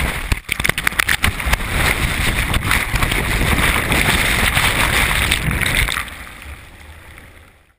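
Surf breaking over a sea kayak's bow and a deck-mounted camera: loud rushing and splashing whitewater, with sharp splashes in the first second or two and wind buffeting the microphone. It holds steady until about six seconds in, then fades away.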